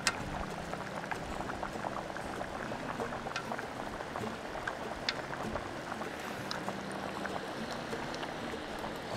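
A pot of chicken soup in coconut water bubbling steadily at a simmer, a dense patter of small bubbles with a few sharper clicks.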